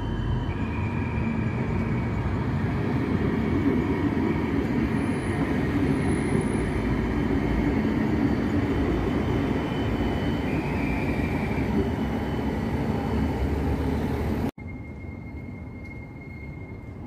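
A CAF Urbos tram running past at close range on street track: a steady rolling rumble with a few thin, steady high tones over it. About fourteen and a half seconds in the sound drops abruptly to a much quieter steady background with one faint high tone.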